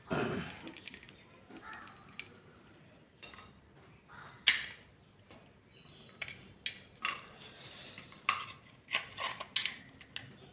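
Metal clicks and clinks from hand-working a welding electrode holder, its spring-loaded jaws and fittings being handled and assembled. The clicks are irregular, with a louder knock right at the start, a sharp click about four and a half seconds in, and a quicker run of clicks in the second half.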